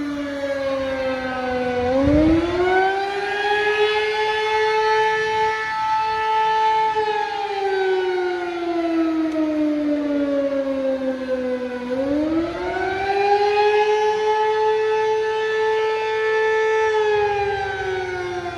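Outdoor warning siren wailing in slow cycles. Its pitch climbs about two seconds in, holds, then slides slowly down, and climbs again about twelve seconds in.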